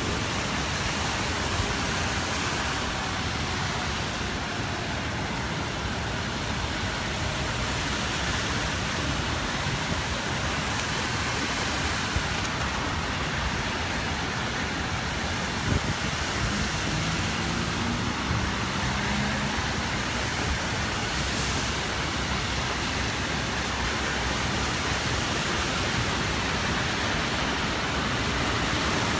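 Steady rushing noise of heavy storm rain and churning floodwater as a city transit bus wades through a flooded street, pushing a wake. The bus engine's low note comes through faintly a little past halfway.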